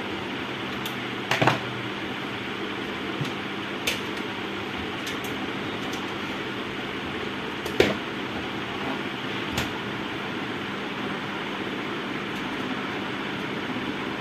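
A few sharp metallic clicks and knocks from pliers and small screws against a sheet-steel monitor chassis, loudest about eight seconds in, over a steady fan-like hum.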